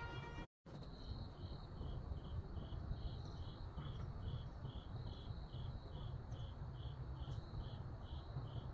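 Steady high chirping from a calling animal, about three evenly spaced chirps a second, over a low rumble.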